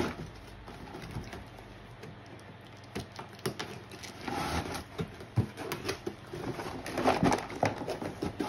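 Cardboard packaging being pulled and bent by hand: irregular scraping, crinkling and sharp cracks, busiest and loudest near the end.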